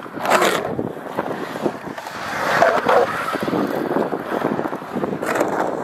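Skateboard wheels rolling and carving across a concrete skate bowl, a continuous rumble with small clicks, with wind buffeting the microphone in short gusts near the start and near the end.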